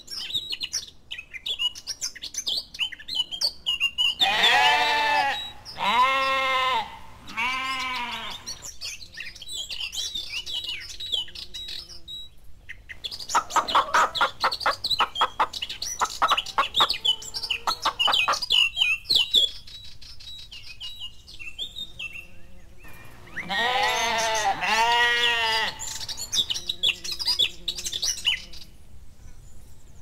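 Animal calls: several long, wavering bleats from sheep or goats, three in a row a few seconds in and another near the end, with a stretch of rapid pulsed calls in the middle and bird chirps twittering throughout.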